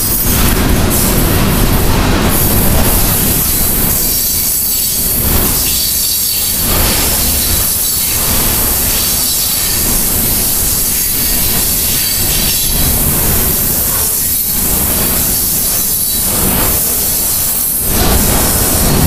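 Loaded coal train's hopper cars rolling slowly past close by: steel wheels rumbling and clacking on the rails, with a thin high wheel squeal. The sound swells and dips as each car goes by.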